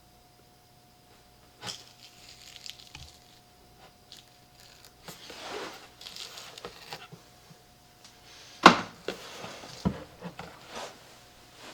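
Handling noises from work on a loudspeaker being taken apart and cleaned: scattered light knocks and clicks, a stretch of rubbing or scraping in the middle, and a sharp knock about two-thirds of the way through.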